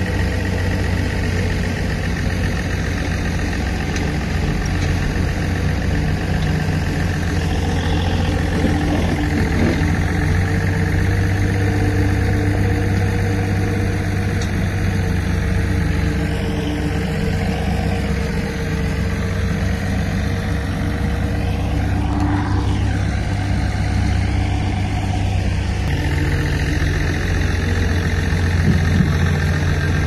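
D60 bulldozer's diesel engine running steadily, its pitch shifting briefly a few times past the middle.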